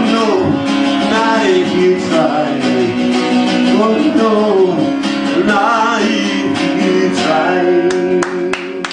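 A man singing with a strummed acoustic guitar, the song's final chord ringing out about eight seconds in, with hand-clapping starting just at the end.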